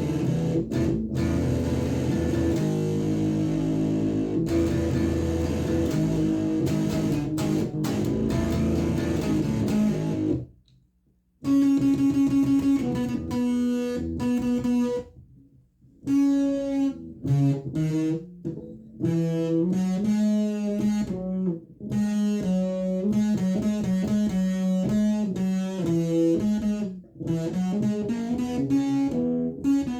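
Electric guitar through a Behringer Super Fuzz pedal, coming out of a Sony sound system's speaker. It starts with thick, sustained fuzz chords, stops for about a second, then plays a single-note improvised solo with some notes bent up in pitch.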